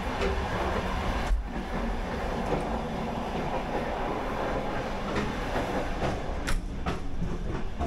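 Running noise of a Soviet-era passenger train heard from the end vestibule and gangway between carriages: a steady rumble and rattle of the moving coaches, with a single sharp knock about six and a half seconds in.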